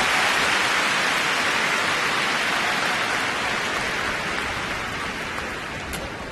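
Arena crowd applauding at the end of a skating programme, the applause slowly dying away.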